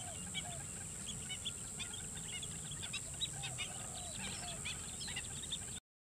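A flock of black-winged stilts calling: many short, high, sharp notes overlapping in quick succession, over a steady high hiss. The sound cuts off abruptly just before the end.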